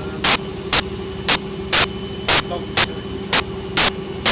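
Servis Quartz 6033 washing machine running: a steady hum with a short, sharp burst of noise repeating evenly about twice a second as the drum works through its Cottons 40 cycle.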